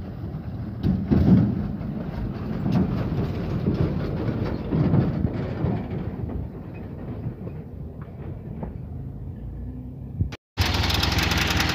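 Uneven rumble of heavy trucks and road traffic passing close by. About ten and a half seconds in, a brief dropout cuts it off and a steady, louder diesel engine idling takes over.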